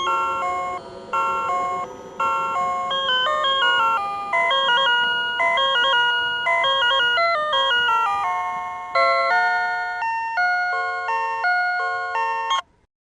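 Railway signal-clearance chime from a PATLITE electronic annunciator on a Tobu Railway platform, telling the crew of a one-man train that the starting signal has cleared. It plays a looping electronic melody of quick stepped tones and cuts off abruptly near the end.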